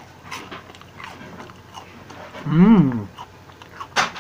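A man eating pancake: faint chewing and small knife-and-fork clicks, with a closed-mouth 'mmm' hum about two and a half seconds in whose pitch rises and then falls. A sharp click of cutlery on the plate comes near the end.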